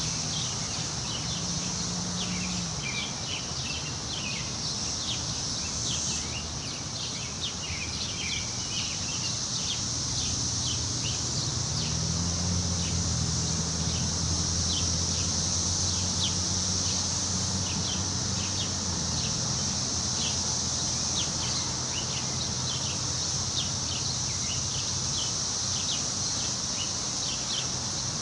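Woodland ambience: a steady high insect buzz with many short bird chirps repeating throughout. A low, steady hum comes in under it for a while in the middle.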